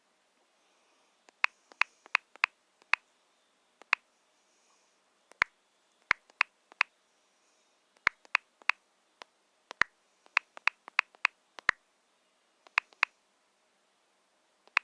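A run of about thirty sharp, short clicks, coming singly and in quick irregular clusters.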